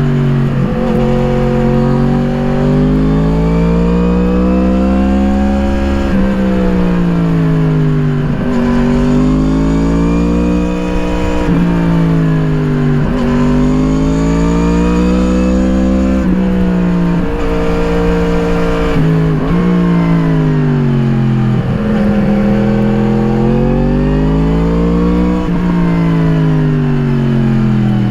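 Yamaha MT-10's crossplane inline-four breathing through an Akrapovič slip-on exhaust, revving up under throttle and falling away again about nine times in a row, with brief breaks in the tone between pulls.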